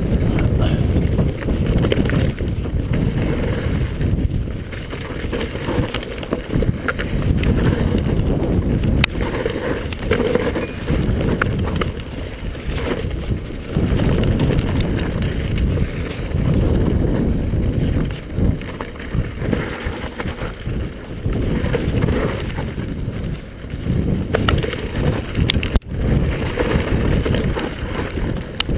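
Wind buffeting the microphone on a mountain bike descending fast, with the tyres rumbling over a leaf-covered dirt trail and occasional sharp clicks and rattles from the bike. The rumble swells and eases with the terrain.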